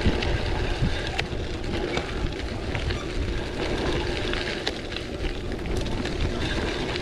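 Rigid gravel bike jolting over a rough trail: tyres crunching on loose stones, with frequent rattles and clicks from the unsuspended frame and parts. Wind rumbles over the microphone throughout.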